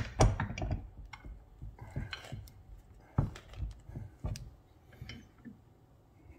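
Irregular metallic clicks and knocks from a copper pipe hanger being handled, clamped and bent in a bench vise. There is a quick cluster of them in the first second, then single knocks scattered through the rest.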